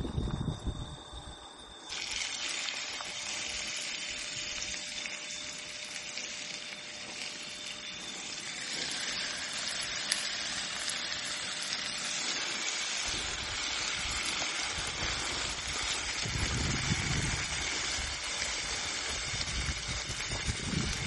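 Chunks of raw meat sizzling in hot oil in a frying pan on a portable gas camping stove. The sizzle starts suddenly about two seconds in as the first pieces hit the oil, and thickens partway through as more meat is added.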